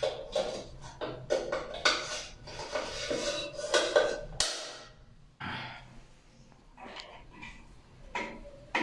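Background music with a rhythmic beat for about the first half, cut off abruptly; then a few light clicks and taps of a screwdriver working at a wall light switch's screws.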